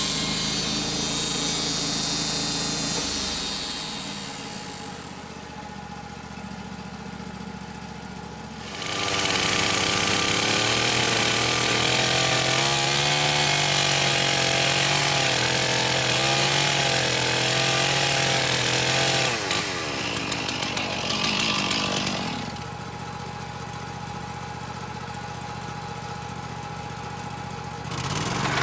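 Wood-Mizer LT-35 portable band sawmill running, its engine and band blade cutting through a cedar log. The sound drops back twice to a quieter, steady engine hum for several seconds, then loudens again as the cut resumes.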